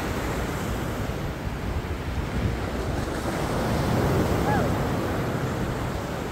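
Ocean surf washing up the beach, with wind buffeting the microphone; the wash swells a little about four seconds in.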